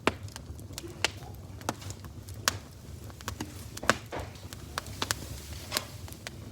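Irregular sharp clicks and taps, about one or two a second, over a low steady hum.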